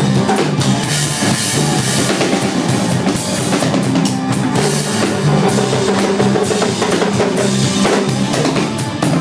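Drum kit played live, drums and cymbals going without a break, with a band's held low notes underneath.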